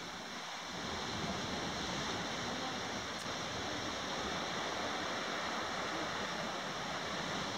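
Steady rushing noise with no distinct events, a little louder from about a second in.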